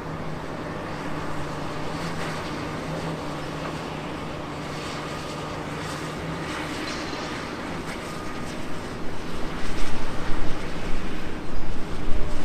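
Heavy diesel engine of a Komatsu PC360LC excavator running with a steady hum. About two-thirds through, loud irregular low rumbling joins in and carries on to the end.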